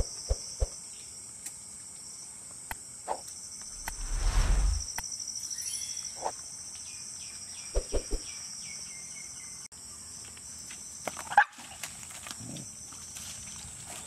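Steady high-pitched chirring of insects, with scattered short clicks and knocks. A loud low rumble comes about four seconds in, and a sharp sound near the end.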